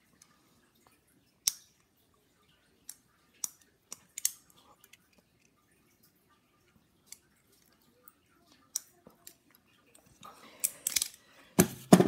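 Sparse light clicks and taps of small metal parts being handled: a tiny drone motor and a pair of locking pliers. There is a sharper, louder clack just before the end.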